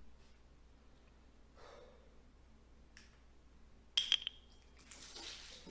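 Quiet room tone with a faint breath about a second and a half in and a sharp click about four seconds in.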